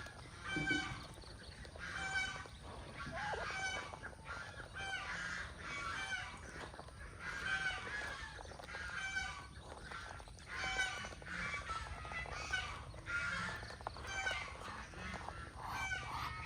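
Domestic poultry calling: short, pitched calls repeated about once or twice a second.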